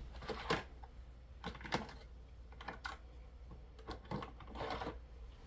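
Irregular light clicks and taps of small objects being handled on a workbench, over a faint steady low hum.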